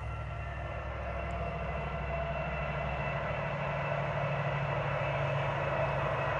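Steady engine drone with a low hum and several held whining tones, growing gradually louder as it approaches.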